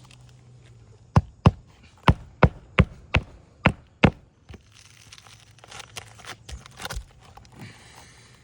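Hand hammer driving roofing nails through an asphalt shingle into the roof deck: about eight sharp strikes in quick succession over three seconds. Softer rustling and light taps follow.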